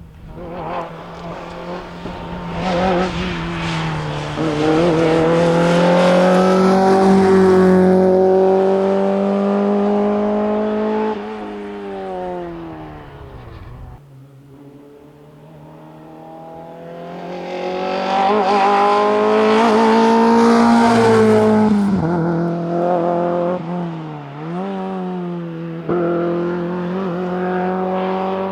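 Citroën AX rally car's engine at high revs on full throttle. The pitch drops near the middle and the sound breaks off abruptly, then the engine comes back and climbs to the same high pitch, with a quick dip a few seconds later as the driver shifts or lifts.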